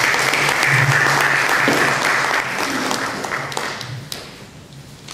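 Audience applauding at the end of a talk. The clapping is loudest for the first two or three seconds, then thins out and dies away about four seconds in.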